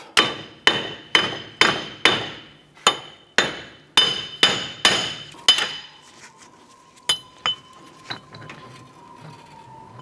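Hammer knocking the rusted front wheel hub and bearing assembly of a 2009 Chevrolet Impala loose from the steering knuckle. There are about eleven ringing metal-on-metal strikes, roughly two a second, over the first half. A few light clinks follow as the hub comes free.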